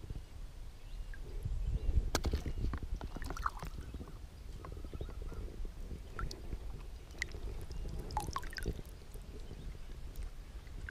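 Small splashes and drips of water around a wading angler handling a fish and his line, with scattered light clicks and knocks over a low rumble.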